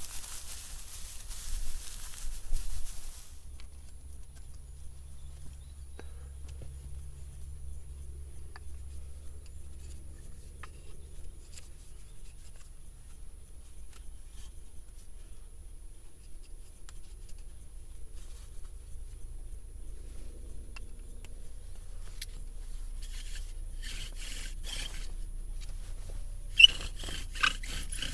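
Dry dead bracken rustling as it is pulled up by hand for the first few seconds. Near the end a hazel bow drill starts up: the spindle grinds and squeaks in the hearth board with each stroke of the bow.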